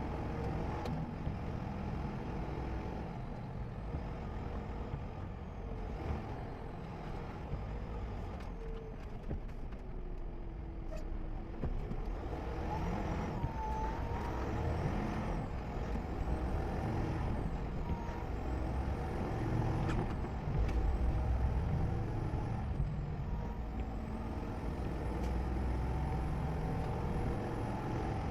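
A vehicle driving on the road: steady engine and tyre rumble, with a faint high whine that wavers up and down in pitch.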